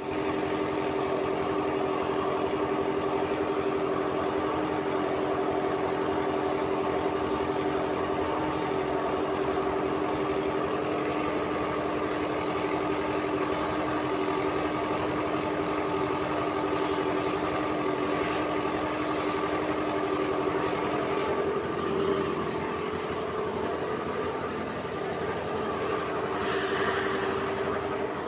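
Air compressor for a paint spray gun running steadily, a constant mechanical hum holding one pitch.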